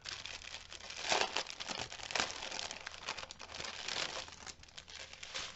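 Clear plastic bag of diamond-painting drill packets crinkling as it is handled in the hands, in irregular rustles that come and go.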